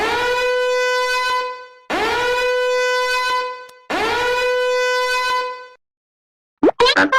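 A meme horn sound effect: three long, identical horn blasts, each scooping up briefly at the start and then holding one steady note. Near the end the next effect begins with a quick rising sweep.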